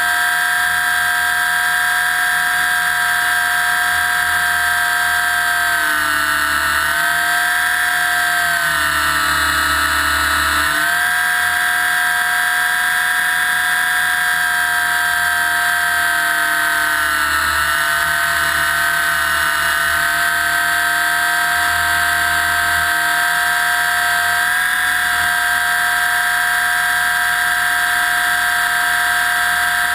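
Align T-Rex 600 electric RC helicopter's motor, drive gears and rotor whining steadily, heard up close from a camera mounted on the helicopter's side. The pitch sags and comes back up twice, about six and seventeen seconds in.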